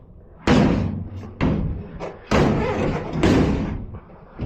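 A pickup's steel tailgate clunking and thudding several times on its hinges as it is worked loose by hand.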